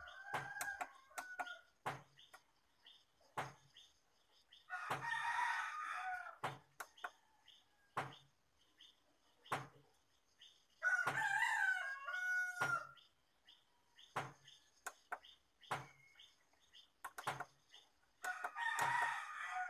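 A rooster crowing three times, each crow about two seconds long. Between the crows come short sharp clicks about once a second, the buttons on the TV's edge being pressed.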